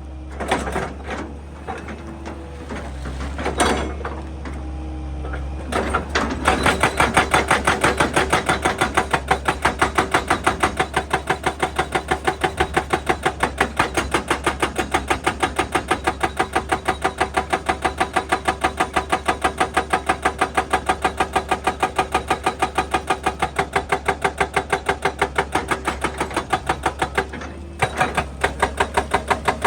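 Excavator-mounted hydraulic breaker hammering rock in a fast, even rhythm of several blows a second, starting about six seconds in and stopping briefly near the end before picking up again. A steady low hum runs underneath, and a few separate knocks come before the hammering starts.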